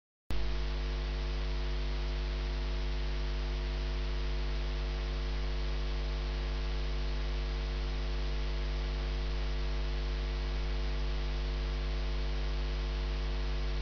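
Steady electrical mains hum with a buzzing stack of higher tones and a layer of hiss, cutting in abruptly after a brief moment of dead silence.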